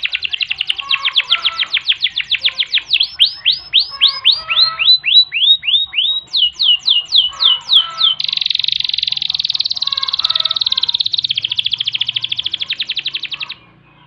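Canary singing one long unbroken song. It opens with rapid repeated trill notes, moves to a run of falling whistled notes about three seconds in, and then gives a few higher falling notes. It ends in a fast, dense rolling trill that stops abruptly near the end.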